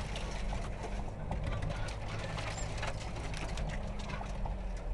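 Mitsubishi Pajero engine running steadily at low revs, heard inside the cabin, with frequent small rattles and knocks as the 4x4 crawls over a rough, rutted track.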